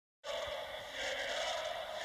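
Music with sustained, held tones, starting suddenly after a moment of dead silence.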